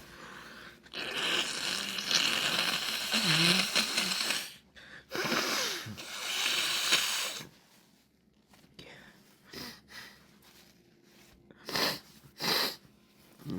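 A person's loud breathing and nose sounds after a sneezing fit. One long harsh rush of air lasts about three seconds, two shorter ones follow, and two quick sharp sniffs come near the end.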